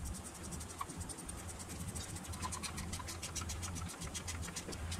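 Ratchet wrench clicking rapidly as bell housing bolts are run in to draw the transmission up against the engine.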